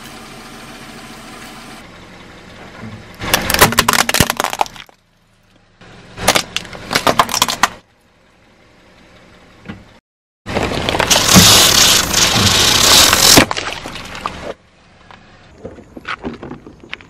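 Car tyre rolling over and crushing plastic toys: several separate bursts of cracking and crunching, the longest and loudest a few seconds past the middle, with quieter crackles near the end.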